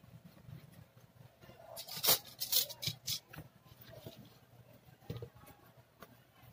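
Hands working masking tape onto a laptop keyboard and handling the plastic top case: rustling and crinkling with light clicks and taps, a sharper cluster of scraping noise about two seconds in.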